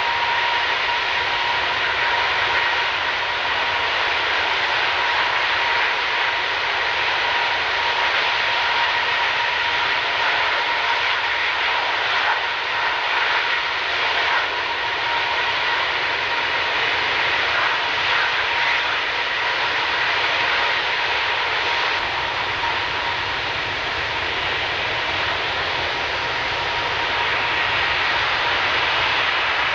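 Airbus A330 turbofan engines held at high power in a ground engine test, a steady jet noise with a steady whine over it. This is the run-up that checks the engines before the aircraft flies again after years in storage.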